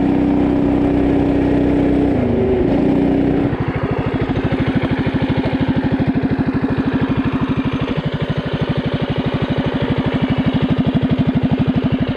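Coleman CT200U mini bike's single-cylinder four-stroke engine running steadily under way, slowing about two to three seconds in. It then settles into an even, rapid idle putter for the rest of the time.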